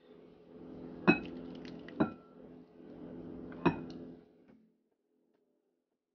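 Beaten egg poured from a glass mixing bowl onto plantain in a second glass bowl and scraped out with a spatula: a wet scraping pour with three sharp clinks on the glass, about a second in, at two seconds, and near four seconds.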